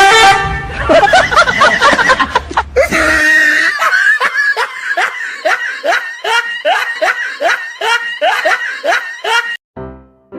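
Laughter: a loud, jumbled outburst for the first three seconds, then a long run of short, rising laughing cries, about two or three a second, that stops shortly before the end.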